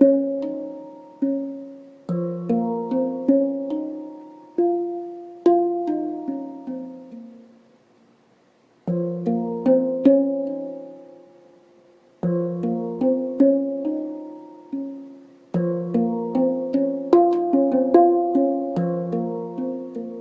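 Harmonic Sound handpan tuned to B-flat minor, played by hand: struck notes ringing out and overlapping in melodic phrases, with a brief pause of about a second midway.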